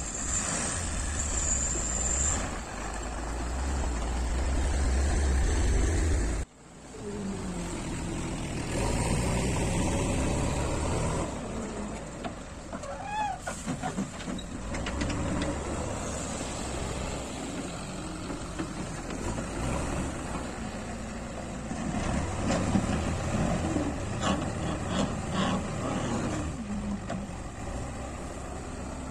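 A diesel truck engine runs with a heavy low rumble and a high hiss at first. After a cut about six seconds in, a JCB 3DX backhoe loader's diesel engine runs as it works, with scattered knocks and rattles later on.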